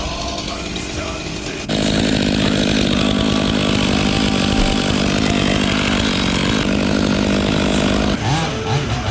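Two-stroke chainsaw revving up sharply to full throttle about two seconds in and running there steadily at an even pitch. Near the end it gives way to rock music.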